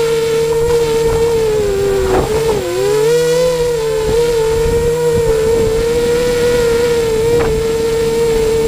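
Eachine 250 racing quadcopter's motors and propellers whining steadily, recorded from the camera riding on it. A little over two seconds in, the pitch dips briefly as the throttle eases, then climbs back.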